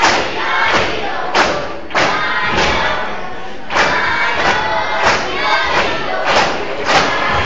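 Poles knocked against a wooden stage floor in a steady beat, about one strike every two-thirds of a second, under a din of children's voices.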